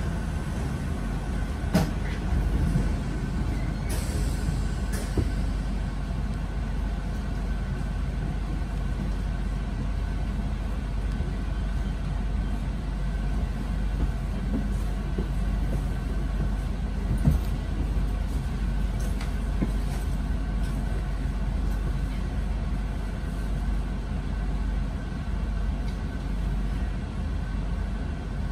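RER commuter train standing at a station platform, heard from inside the carriage: a steady low hum from its running equipment, with a few sharp clicks and knocks.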